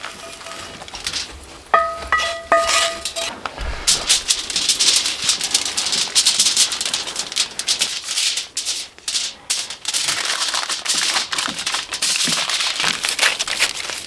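Aluminum foil crinkling and crackling as a burrito is wrapped in it, a dense run of fine crackles from about three and a half seconds in. Just before, a brief clear tone sounds a couple of times.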